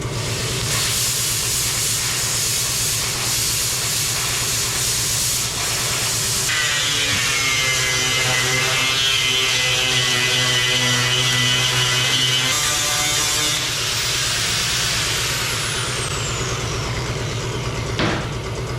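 Plasma cutter cutting through rusty sheet steel: a loud steady hiss that starts about a second in and stops about two-thirds of the way through, with a whine in the middle of the cut, then a falling whine and a sharp click near the end.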